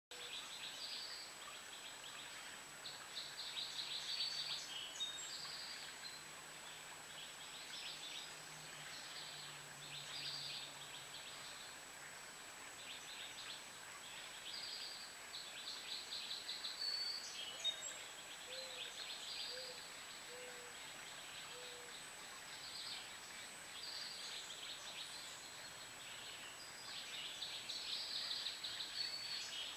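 Outdoor oak-woodland ambience with small birds calling in short buzzy trills, repeated every second or two, over a thin steady high tone. Four faint low notes about a second apart come midway.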